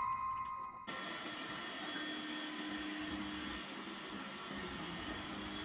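Dreame X50 Ultra robot vacuum running, a steady rushing noise with a low steady hum, coming in about a second in as the last notes of piano music die away.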